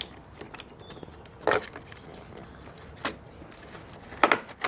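A few light clicks and knocks, with small metallic rattles, from hands working on a motorcycle's handlebar wiring and parts. The loudest come about a second and a half in, about three seconds in, and twice just before the end.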